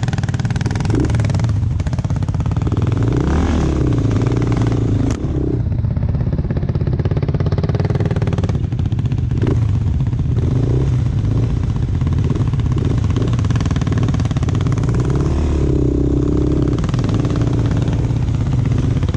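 ATV engine running as it is ridden, its pitch rising and falling with the throttle, with a single sharp click about five seconds in.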